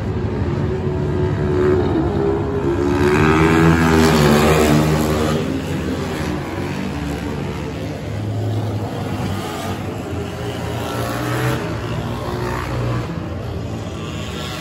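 Dirt bike engines racing around a dirt oval, revving up and down. The loudest point, about three to five seconds in, is a bike passing close. After that a steadier, lower engine note carries on.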